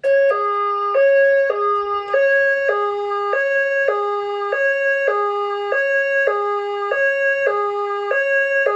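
Fire alarm voice-evacuation system (Notifier DVC) playing its alert tone through a speaker: two tones alternating, about once a second. This is the attention signal that comes before a fire evacuation voice message.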